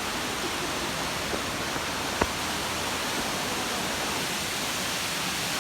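Waterfall's water pouring down in a steady, even rush. A single sharp click about two seconds in.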